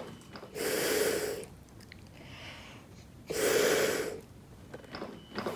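Two rescue breaths blown through a CPR pocket mask's one-way valve into a training manikin, each a rush of air lasting about a second, the second coming about two and a half seconds after the first.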